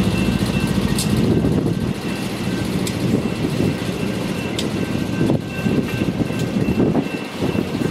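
Loaded ballast hopper cars of a rock train rolling past, a steady rumble of wheels on rail with a few sharp clicks from the wheels.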